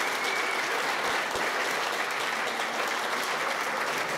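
Audience applauding steadily, a crowd of many hands clapping at once.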